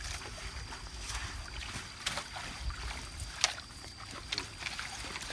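Water splashing and dripping as a wet mesh shrimp net is lifted out of shallow river water, with scattered sharp splashes, the loudest about three and a half seconds in, over a low wind rumble on the microphone. A faint steady high tone runs underneath.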